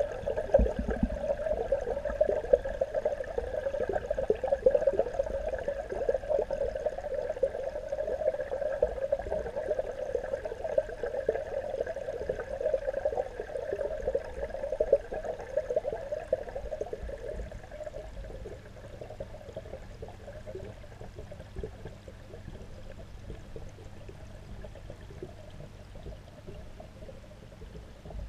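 Pond water rushing and pouring, heard from underwater, muffled, with a low steady hum underneath; it grows quieter about two-thirds of the way through.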